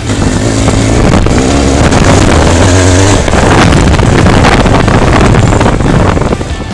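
Benelli TRK 502's parallel-twin engine running under load as the bike is ridden over a dirt trail, with wind noise on the microphone.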